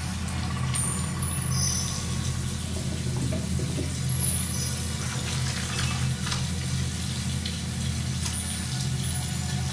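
Bathroom mixer tap running a thin stream into a ceramic washbasin while hands are washed under it, over a steady low hum.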